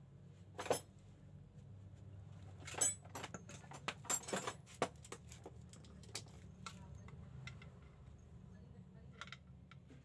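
Metal clinks and knocks as a Toyota Avanza steering rack bar is handled and slid into its rack housing. There is a sharp tap just under a second in, then a busy run of taps between about three and five seconds in, and scattered lighter ones after. A faint steady low hum runs underneath.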